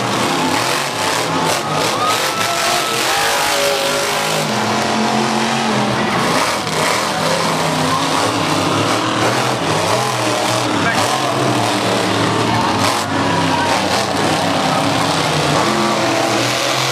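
Monster truck engine revving hard, its pitch rising and falling without a break as the truck spins and jumps on the dirt track.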